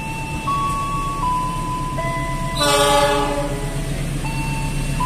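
A single short blast, about half a second, of a diesel locomotive's air horn about two and a half seconds in, from the CC206 freight locomotive approaching the station. Under it, a plain melody of held notes and a steady low hum.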